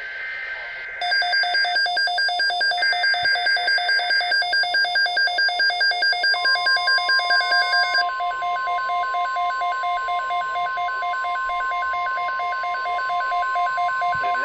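Electronic alert beeping, a many-toned beep pulsing about four times a second. About six seconds in it is joined by one long steady tone, the NOAA Weather Radio warning alarm tone that heralds a new alert.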